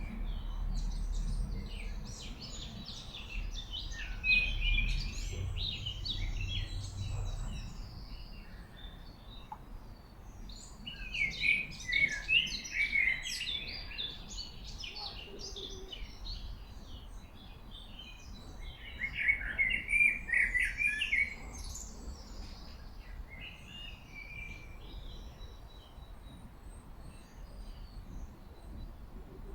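Small songbirds singing in bouts of quick, twittering chirps, loudest twice in the middle of the stretch, over the low, steady rush of a gorge stream.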